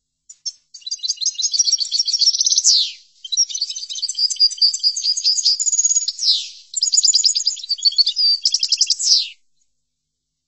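European goldfinch song: three long phrases of rapid twittering trills and buzzy notes, each ending in a quick downward-sweeping note. The song stops about nine seconds in.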